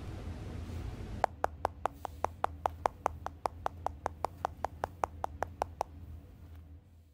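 Quick, evenly spaced fingertip taps on iPod touch touchscreens, about five a second, starting about a second in and stopping near the end, over a low steady hum.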